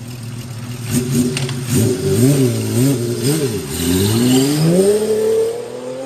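Honda CBX 1050's carbureted 1047cc inline-six engine idling, then blipped up twice in quick revs, then revved in a long, steady climb in pitch through the last few seconds.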